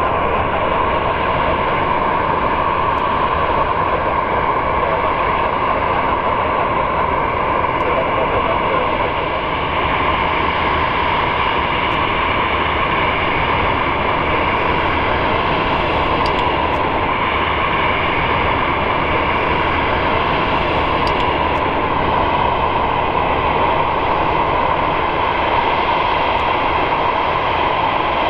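Boeing 737-800's twin CFM56-7B jet engines running at taxi idle, a loud, steady jet noise with no change in pitch.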